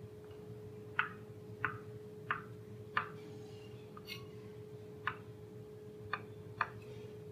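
Knife chopping dragon fruit on a plastic cutting board: seven sharp knocks of the blade striking the board, spaced about half a second to two seconds apart. A steady low hum runs underneath.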